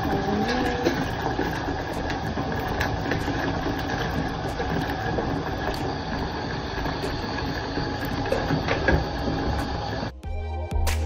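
Bathtub tap running, filling the tub with a steady rush of water. About ten seconds in it cuts off abruptly and music takes over.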